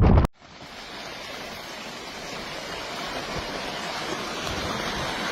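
Loud wind buffeting the microphone cuts off abruptly just after the start. A steady rushing noise follows and slowly grows louder.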